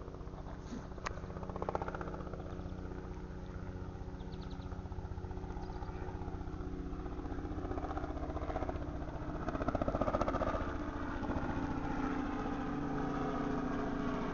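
An engine running steadily, slowly getting louder, with a couple of small clicks in the first two seconds.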